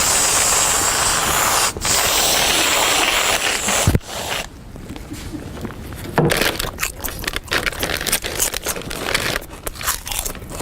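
Loud crinkling and rustling of a plastic food wrapper for about four seconds, ending with a sharp snap, then irregular crackling and crunching.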